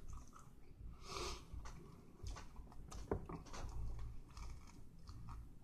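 A person chewing and biting into a toasted tuna melt sandwich: soft, scattered wet mouth clicks, with a sharper click about three seconds in.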